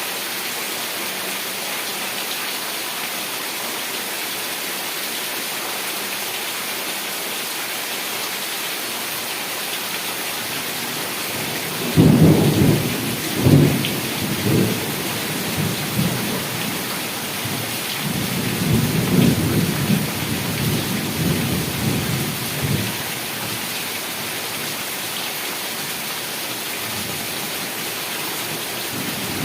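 Heavy rain falling in a steady hiss. About twelve seconds in, a thunderclap breaks out sharply and rumbles for a few seconds. A longer rolling rumble of thunder follows a few seconds later, and another begins right at the end.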